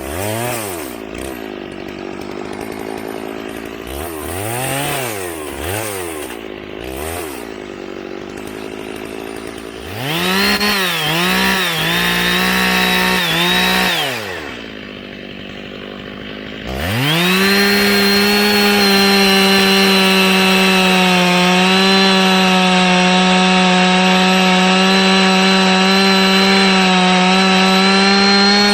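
Chainsaw revving up and down in short surges, dropping back to idle briefly past the middle, then held steadily at high speed for the last ten seconds or so while cutting through an oak log.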